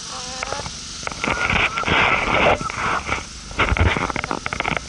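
Chickens pecking and scraping at the camera right by the microphone: irregular clusters of sharp taps, with a rough scraping stretch about a second in and a burst of rapid pecks near the end.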